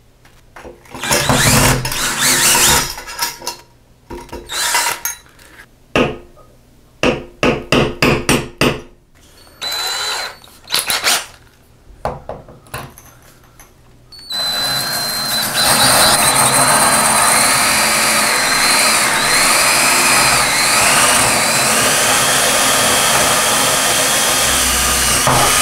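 Cordless drill running in several short bursts, backing screws out of a grab bar's mounting flange. From about 14 seconds in it runs without a break, drilling a hole through the shower's wall tile with a wavering whine, and it stops at the very end.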